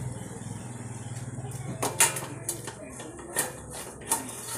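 Thick curry gravy bubbling in a steel kadhai on a gas burner: a steady low hum, then from about two seconds in a run of irregular sharp pops as bubbles burst at the surface.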